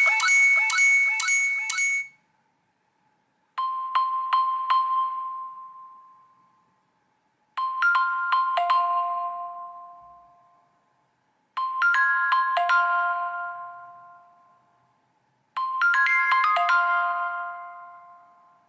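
iPhone iOS 17 ringtones. A busier tone ends about two seconds in, then a new ringtone plays a short phrase of chiming notes that ring out and fade. The phrase repeats every four seconds, four times, gaining notes with each repeat.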